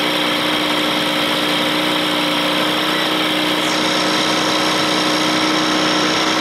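Two-stroke Johnson/Evinrude outboard motor idling steadily at an even pitch.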